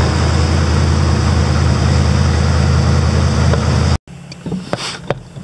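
Pickup truck engine idling steadily while it warms up on a freezing morning, loud and close in an enclosed garage. It cuts off abruptly about four seconds in, leaving a much quieter background with a few light knocks.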